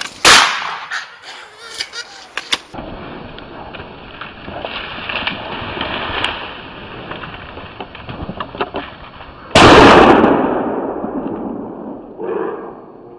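Two gunshots from a hunting gun, about nine seconds apart, the second dying away over more than a second. Between them comes rustling and crackling with small clicks.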